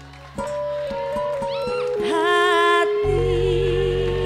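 Pop ballad music from the live band closing the song. After a brief lull there is a melody of held notes stepping in pitch, a short wavering vocal phrase about two seconds in, and fuller band sound with bass coming in about three seconds in.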